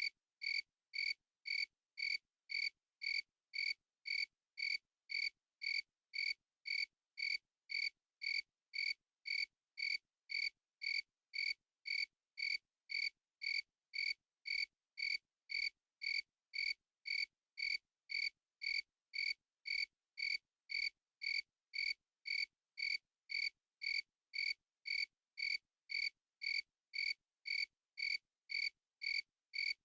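A single cricket chirping in a very even rhythm, about two short, pitched chirps a second, with no other sound between them.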